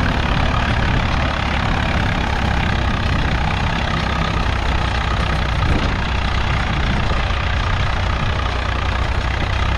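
Swaraj 855 tractor's three-cylinder diesel engine running steadily at high revs under heavy field load, with the tyres slipping.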